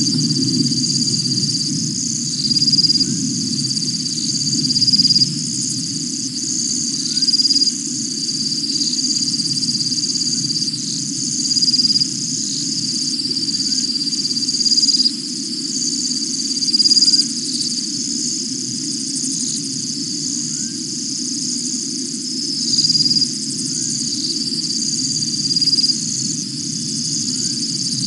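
Night chorus of insects: a steady high-pitched trilling that swells about every two seconds, over a continuous low hum.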